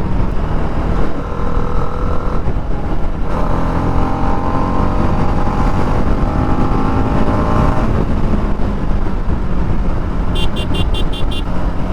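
TVS Apache RR 310's single-cylinder engine through its stock exhaust while riding, with wind blast on the microphone. The engine note climbs steadily in pitch under acceleration for several seconds mid-way, then eases off. Near the end there is a quick run of about seven short high beeps.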